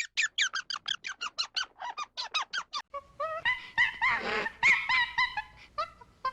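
A small animal giving a rapid series of short, high squeaking calls, each sweeping down in pitch, about six a second. From about three seconds in, the calls become denser and overlap, as if several animals are calling together.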